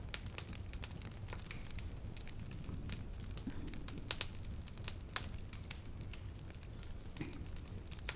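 Faint, irregular crackling and clicks over a low steady hum.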